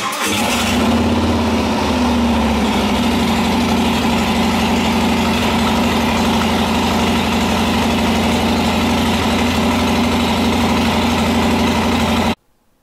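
Harley-Davidson FXBR Breakout's V-twin engine catching right at the start and then idling steadily. The sound cuts off suddenly near the end.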